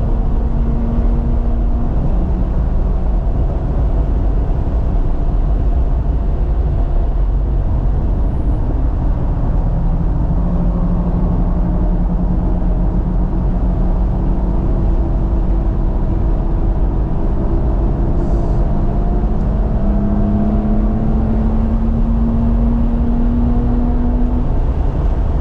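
A BMW F80 M3's twin-turbo straight-six running hard on track, heard from inside the cabin over heavy road and wind rumble. Its pitch drops about two seconds in, climbs slowly through the middle, then steps up and climbs again in the last third.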